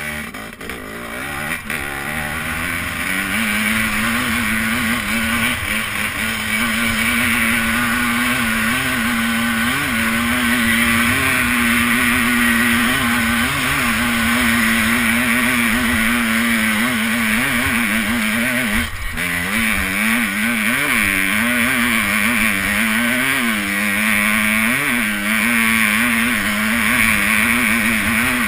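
Enduro motorcycle engine under load climbing a steep slope, heard from on board. The revs climb over the first few seconds, then hold high with small throttle rises and falls, dipping briefly about two-thirds of the way through.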